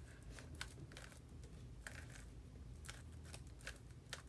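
Plastic Rubik's Cube layers being twisted by hand through a sequence of moves: a series of faint, irregular clicks and rattles.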